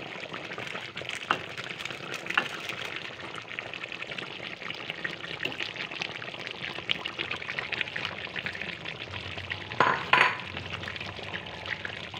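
Chicken curry sizzling in a metal wok as a spatula stirs it, with scattered scrapes and taps of the spatula on the pan. A louder clatter comes near the end, as the diced potatoes go in.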